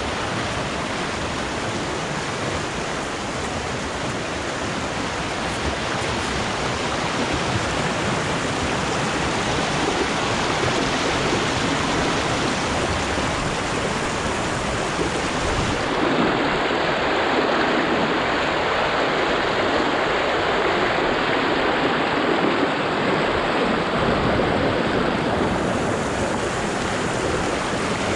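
River water rushing over rock slabs in shallow rapids, a steady rush that gets a little louder past the middle.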